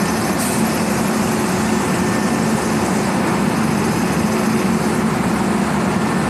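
WAP-7 electric locomotive standing with its onboard machinery running: a loud, steady whirring hum with a low drone.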